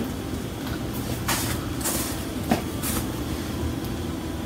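Seasoning shaken from a spice shaker over food in a pot: a few short hissing shakes about half a second to a second apart, with a click in the middle, over a steady low hum.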